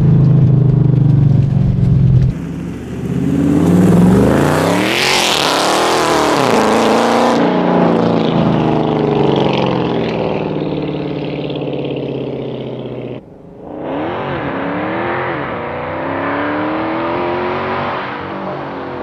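2021 Dodge Charger Scat Pack's 6.4-litre HEMI V8, with long-tube headers and resonator-deleted exhaust, accelerating hard through the gears, its note climbing and dropping back at each upshift. The sound breaks off abruptly a couple of seconds in and again about two-thirds through, each time resuming with more hard acceleration.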